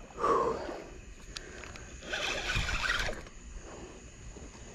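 Spinning fishing reel being cranked in two short spells, a raspy winding noise, the second and louder about two seconds in, as a hooked fish is played in on the line.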